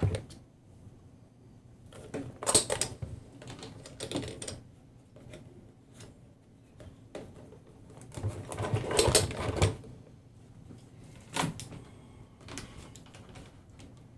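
Irregular clicks and knocks of small tools and parts being handled on a workbench, in a few bursts, the busiest clatter a little over two seconds in and again for about a second and a half near the middle.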